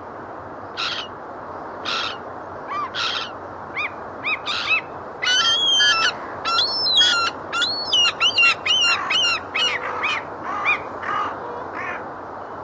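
Gulls calling: single calls about once a second at first, then a dense run of overlapping calls from about five to nine seconds in, thinning out near the end, over a steady hiss.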